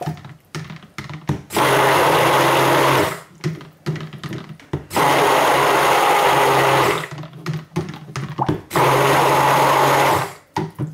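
Cuisinart Smart Stick immersion blender run in short pulses in cold-process soap batter to bring it to emulsion: three bursts of steady motor whine, each about two seconds long. Clicks and knocks of the blender head in the bowl fill the gaps between the bursts.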